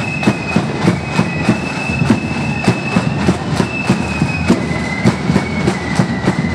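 Marching flute band playing: flutes hold a high melody of long notes over a steady drum beat of about three strokes a second.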